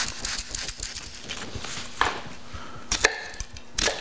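Chef's knife cutting into a yellow onion on a wooden butcher-block board: light rustling and clicking, with a few sharp knocks of the blade on the wood about two, three and four seconds in.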